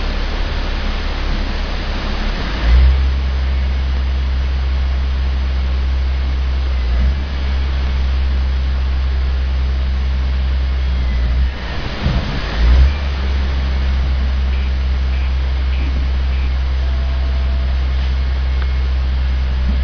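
Rear-loader garbage truck's engine and hydraulics running as the packer blade compacts the load, a steady low drone. It gets louder about three seconds in as the packing cycle takes up, wavers briefly near the middle, then runs on steadily.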